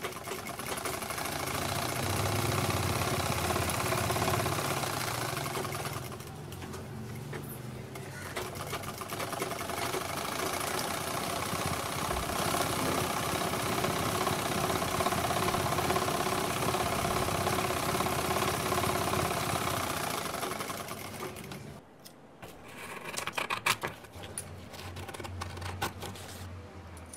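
Sewing machine running steadily while stitching the layered paper and fabric of a songkok cap. It runs in two stretches with a short pause about six seconds in, then stops about three-quarters of the way through. A few sharp clicks follow near the end.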